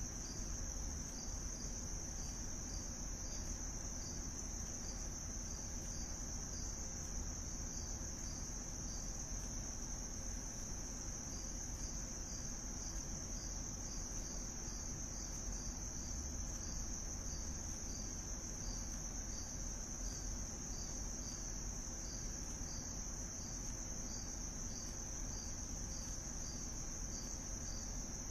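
A steady, high-pitched insect-like trill with a fainter, evenly spaced pulse just beneath it, over a low hum.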